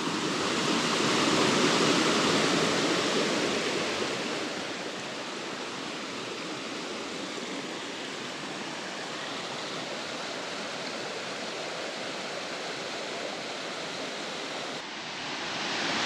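Steady rush of water from a tiered forest waterfall cascade, louder in the first few seconds and then settling to an even, softer rush.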